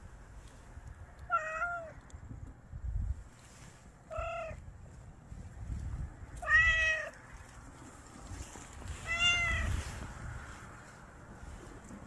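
A stray tortoiseshell cat meowing four times, short meows a few seconds apart, the third the loudest.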